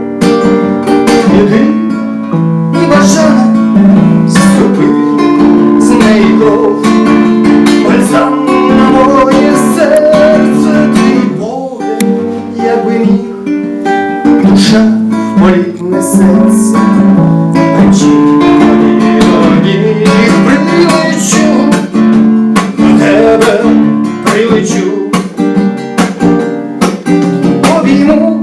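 Acoustic guitar strumming chords in a steady rhythm: an instrumental passage of a song.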